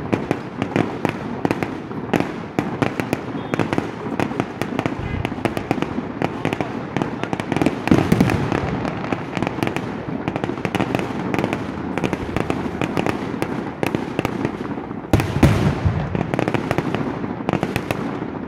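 Fireworks display: a dense, continuous barrage of bangs and crackling from bursting aerial shells. Heavier volleys come about eight seconds in and again about fifteen seconds in.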